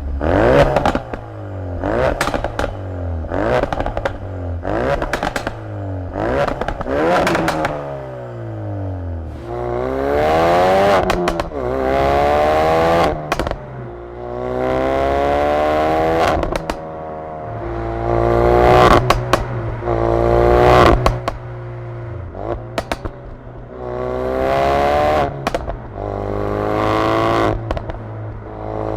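2016 Ford Focus RS's 2.3-litre turbocharged four-cylinder through its stock exhaust, revving. First come about six quick rev blips, each falling back with sharp pops and bangs. Then come longer climbs up through the revs, with cracks and crackles each time the throttle lifts.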